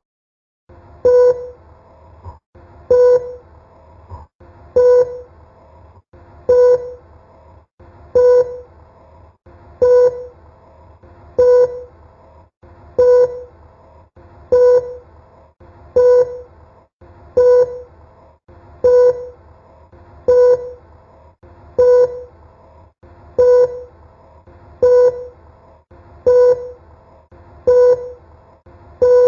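Oticon Streamer Pro hearing-aid streamer sounding a short, low beep over and over, about every one and a half to two seconds.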